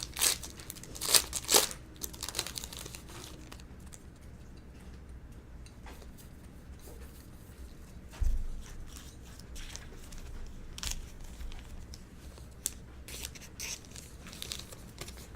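Foil wrapper of a baseball card pack torn open with a few sharp rips, then crinkled, followed by quieter rustling and clicking of cards being handled and a single low thump partway through.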